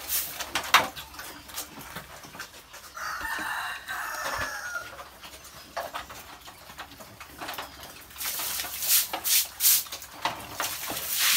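A rooster crows once, starting about three seconds in and lasting about two seconds. Around it, a broom scrapes the concrete floor in quick strokes, most busily near the end.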